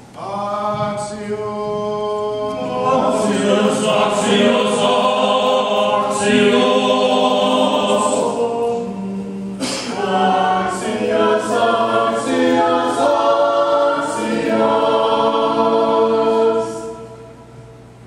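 Church choir singing Orthodox liturgical chant a cappella, several voices holding sustained notes in harmony. There is a short break a little past halfway, and the singing ends about a second before the end.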